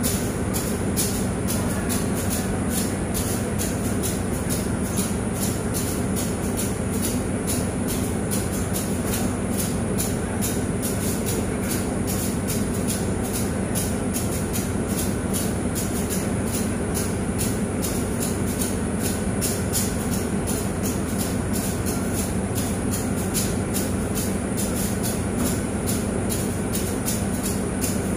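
Compressed air on a standing diesel-hauled train sounding in a fast, even rhythm, over the steady low hum of the idling locomotive.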